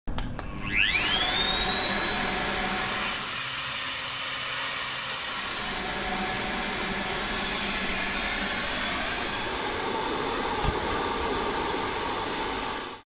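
Deerma DX1000 corded stick vacuum cleaner switching on: its motor whine rises steeply in the first second. It then runs steadily with a high whine over rushing air, and cuts off suddenly near the end.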